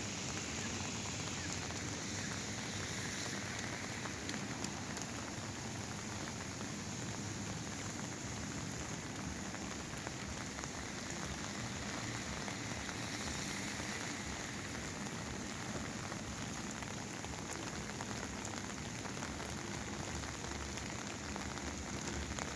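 Heavy rain falling steadily, the drops pattering on an umbrella held overhead.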